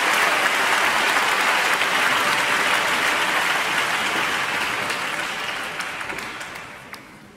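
Applause from many people in a theatre, a dense steady clatter of clapping hands that dies away over the last two seconds.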